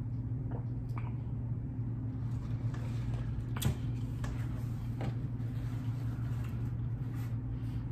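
Sips and swallows from a plastic cup of iced drink with small mouth clicks, then a sharp knock about three and a half seconds in as the cup is set down on the table, and a paper napkin wiped across the mouth near the end. A steady low hum lies underneath.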